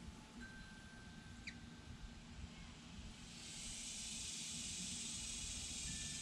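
Outdoor ambience: a high, steady hiss swells in about three seconds in and holds, over a faint low rumble. Earlier there is a thin held tone and one short high chirp.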